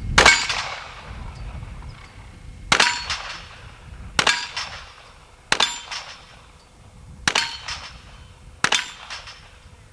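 .38 revolver fired six times, one shot every one to two seconds, each with a short echo trailing off.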